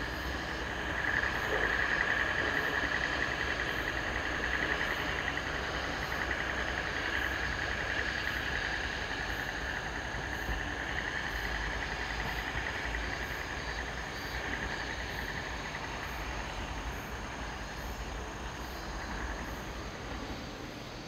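Diesel railcar engine running at a distance as a low rumble that slowly fades, under a steady high trill of insects.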